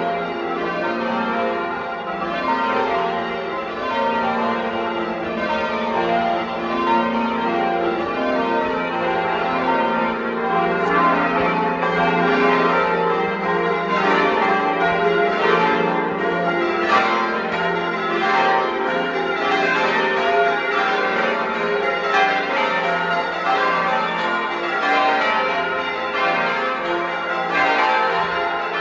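Village church bells ringing as a continuous peal, several bells struck one after another, sounding the call to church on Sunday morning.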